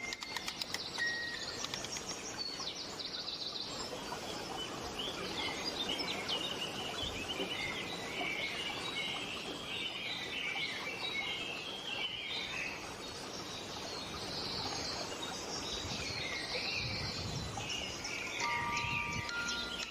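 Many birds chirping in a dense chorus over a steady hiss, with a few held chime-like tones coming in near the end.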